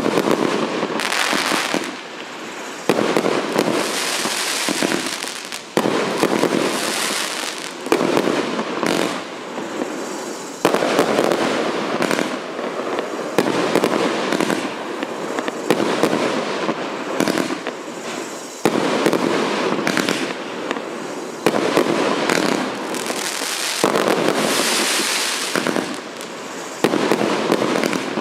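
184-shot fireworks cake firing a continuous barrage of launches and aerial bursts, with a fresh loud salvo every one to three seconds over a dense wash of pops.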